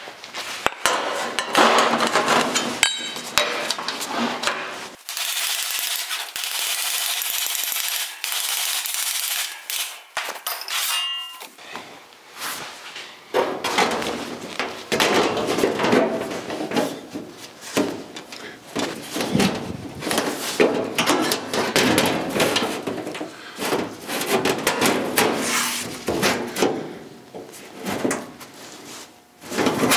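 Hammer knocks and metal clanks on an 18-gauge sheet-steel floor pan being shaped and fitted, broken about five seconds in by a power cutting tool. The tool runs steadily for about five seconds, then spins down with a falling whine.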